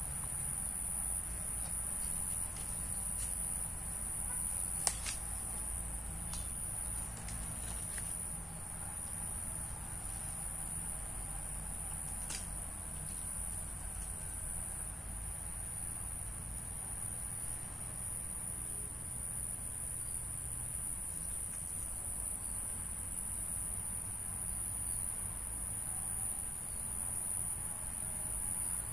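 Steady, unbroken high-pitched drone of insects, with a few short clicks, the sharpest about five seconds in.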